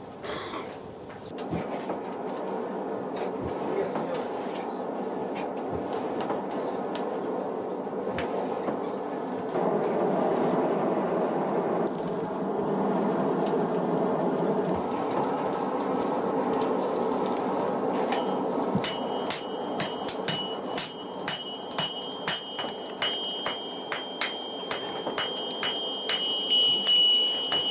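A blacksmith's forge fire runs with a steady rushing noise. About two-thirds of the way in, repeated hammer blows start on red-hot iron on the anvil, each strike leaving the anvil ringing with a high tone that builds toward the end.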